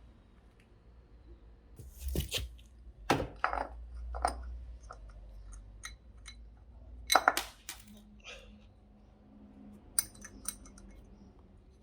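Handling noises of tools and small parts: scattered clicks, clinks and knocks, loudest about two, three and seven seconds in, with a sharp tick near the end.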